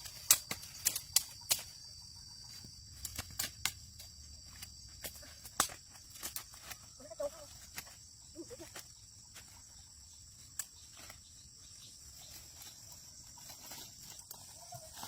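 Crickets or other insects chirring steadily, with scattered sharp knocks and taps, and two short animal calls near the middle.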